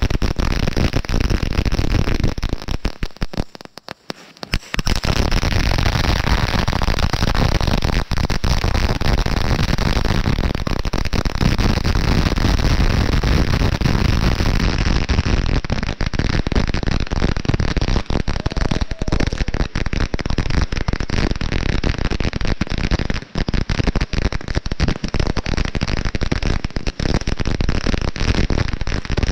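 Brothers Fireworks 'Be All and End All' ground firework firing: loud, dense, continuous crackling and popping, dropping away briefly about three to four seconds in.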